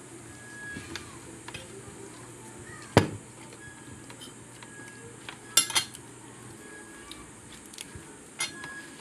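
Eating utensils clinking and scraping against a plate during a meal, with a loud sharp clink about three seconds in, a quick run of clinks a little past halfway, and another near the end.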